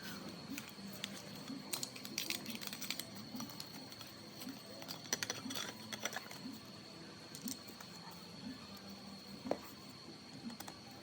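Electric grinder running with a steady hum and a thin high whine, overlaid by a low rough pulse repeating a little faster than once a second: the 'snoring' noise of a faulty grinder. Clusters of light clicks and rattles come in the middle.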